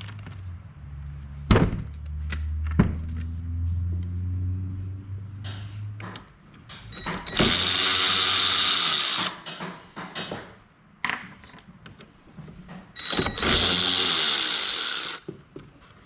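A handheld power tool backing out the bolts that hold the snowblower's auger paddles. A low hum with two sharp clicks comes first, then two loud runs of the tool, each about two seconds long.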